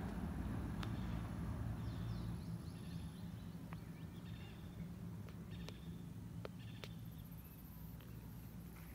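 Low rumble of a vehicle on the highway fading away as it recedes, with faint bird chirps and a few light clicks.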